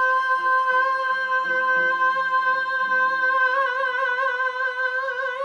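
A man singing one long, high, sustained final note of a musical-theatre song, its vibrato growing wider about halfway through. Beneath it, a lower accompaniment plays a few changing notes and then stops.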